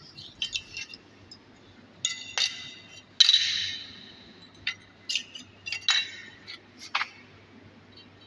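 Small metal parts clinking and knocking together in irregular sharp strikes, about a dozen in all. The loudest comes a little over three seconds in and rings on, fading over about a second.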